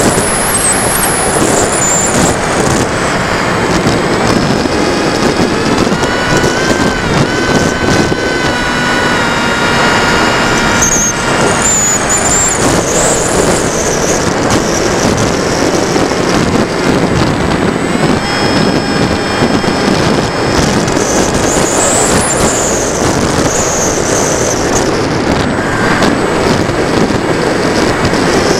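Onboard sound of a TechOne Mercury RC plane in flight: a loud, steady rush of air over the plane-mounted camera's microphone, with the electric motor and propeller whining underneath. The whine rises and falls in pitch with the throttle, most clearly a few seconds in and again past the middle.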